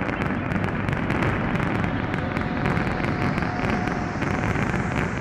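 Fireworks display: a dense, steady crackle of many small pops and bangs going off in quick succession, with no single standout boom.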